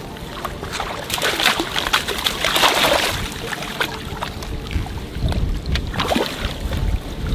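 Water sloshing and splashing as a keepnet of bream is tipped out into the river and the fish are released, the loudest splashing about two to three seconds in. A low rumble of wind on the microphone near the end.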